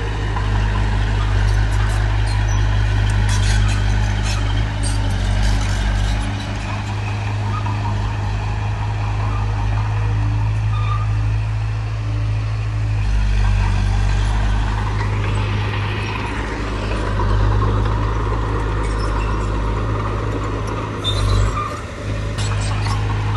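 Heavy diesel earthmoving machinery running under load, its engine note shifting as the load changes, with scattered metallic clanks and rattles.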